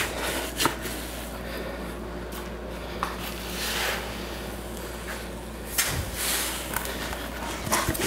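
Wet castable refractory being tamped into a furnace mould with a stick and a hammer: a few scattered knocks and short scraping noises.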